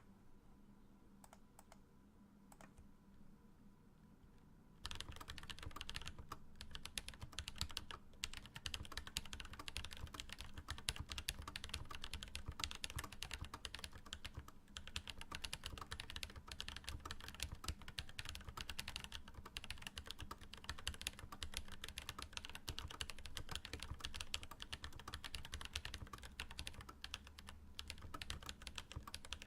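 Fast typing on a Pearl 40% mechanical keyboard with lubed Holy Panda tactile switches and GMK keycaps: a rapid, continuous clatter of keystrokes. It starts about five seconds in, after a few faint clicks.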